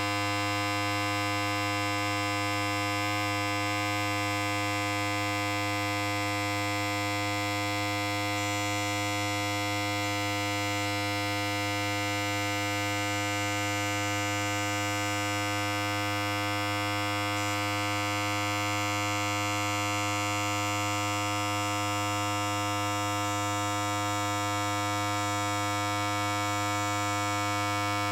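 Electric hair clipper running continuously with a steady, even buzz.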